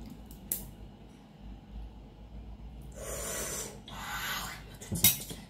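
Close-miked crawfish eating: a sharp crack of shell about half a second in, two longer hissing sounds around three to four and a half seconds, and a louder crack of shell near the end.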